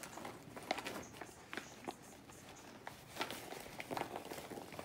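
Paper microwave-popcorn bag rustling and crinkling as it is handled and reached into: a string of irregular small crackles and clicks.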